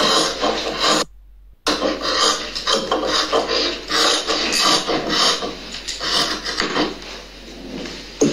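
Dressmaking scissors cutting through fabric on a table: a run of rasping snips, with a brief break about a second in.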